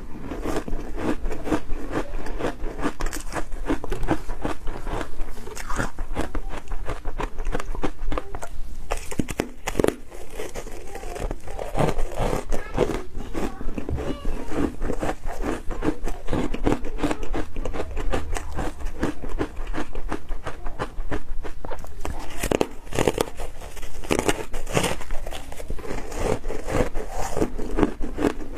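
Close-up chewing and crunching of soft, powdery ice coated in matcha powder: a continuous run of small crunches as mouthfuls are bitten and chewed.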